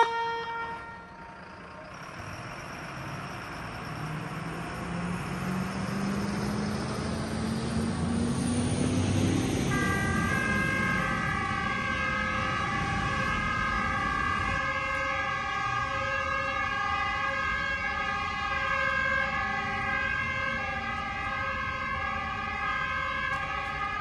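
Kockum Sonics Delta 4 fire-alarm siren starting up with a slowly rising sound. About ten seconds in it settles into the Swiss Cis-Gis alternating two-tone fire alarm, switching steadily back and forth between the two pitches, which calls firefighters to the station.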